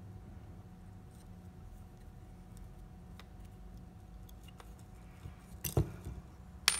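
Faint ticks and light clicks of small metal and plastic encoder parts being handled on a servo motor's end housing, over a steady low hum, with two sharper clacks near the end.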